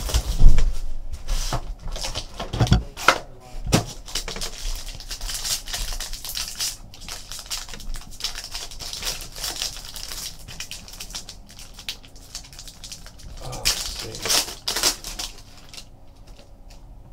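Hands opening a sealed trading card box and handling its foil pack: dense crinkling and rustling of foil and cardboard with sharp clicks, loudest about half a second in and again about thirteen to fifteen seconds in, dying down near the end.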